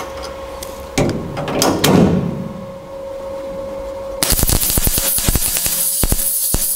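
MIG welding arc crackling and hissing as metal is welded into the truck's door-hinge pocket. It starts abruptly about four seconds in. Before it there is a knock and some clattering of metal parts being set, over a steady hum.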